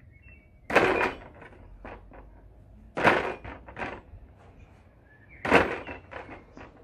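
A small weight plate hanging on a cord knocks into a plastic bucket on each squat, three times about two and a half seconds apart, each knock followed by a short rattle.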